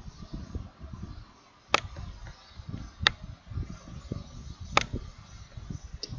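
Computer mouse clicking: four single sharp clicks spaced one to two seconds apart, over a low, uneven rumble.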